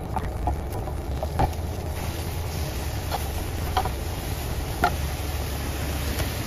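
Egg whites with diced bell pepper and turkey bacon sizzling in a frying pan, with a silicone spatula scraping and tapping against the pan several times as they are scrambled.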